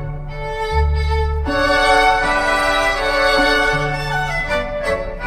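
Music with sustained bowed-string melody and deep bass notes, played through an aftermarket car audio system of Morel Elate Titanium speakers, Audison amplifiers and an Audison subwoofer, heard inside the car's cabin.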